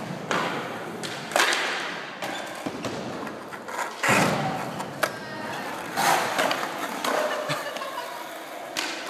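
A series of irregular thumps and scuffing knocks, several over a few seconds.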